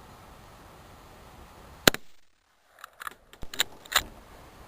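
A single rifle shot cracks about two seconds in, followed by a run of sharp clicks and knocks, the loudest near the end.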